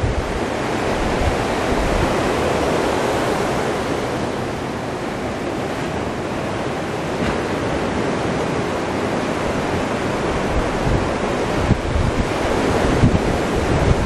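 Surf breaking and washing up a sandy beach, a steady rushing hiss, mixed with wind buffeting the camera's microphone. The wind rumbles come in gusts and grow heavier in the last few seconds.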